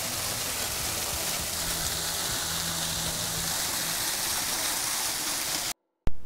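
Small waterfall splashing steadily down a rock face into a shallow pool, a constant rush of falling water. It cuts off suddenly near the end, followed by a brief click.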